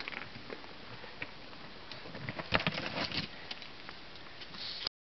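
Footsteps scuffing over rocks while clothing and dry branches brush and scrape, in scattered clicks with a louder cluster of scrapes about two and a half seconds in. The sound cuts off suddenly near the end.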